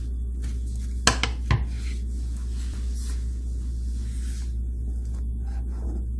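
Kitchen utensils clattering twice on a counter, about half a second apart, a second or so in, with a fainter knock later, over a steady low hum.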